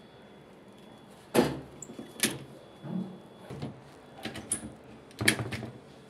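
Knocks and clatters of hard plastic as a washing machine's front control panel board is handled and taken out, with two sharp knocks, about a second and a half in and near the end, the loudest.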